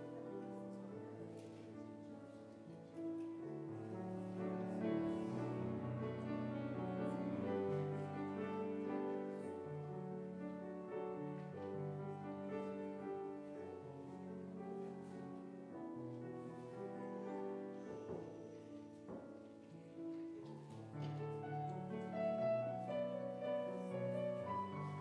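Grand piano playing an offertory piece in sustained, flowing chords.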